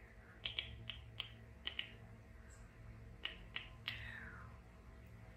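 Soft close-up clicks and taps, about a dozen in irregular clusters, with a faint falling squeak just after the last ones, over a low steady hum.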